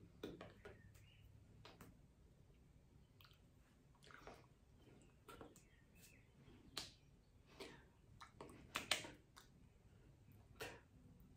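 Near silence with faint, irregular clicks and soft taps from a signer's hands striking and brushing together while signing, the strongest about nine seconds in, over a low steady hum.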